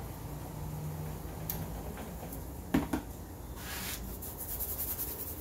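Handling noise from the camera being moved and set down: two sharp knocks close together about three seconds in, then a short rustle, over a low steady hum.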